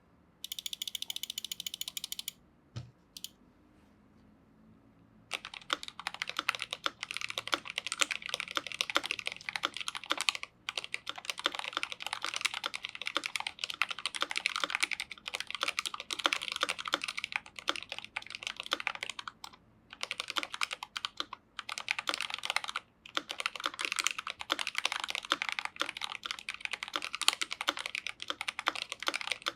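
Fast typing on a GMMK Pro mechanical keyboard with lubed Gateron Ink Black V2 linear switches, a rapid run of key strokes that starts about five seconds in and breaks off briefly a few times. It is preceded by a short high tone and a single click.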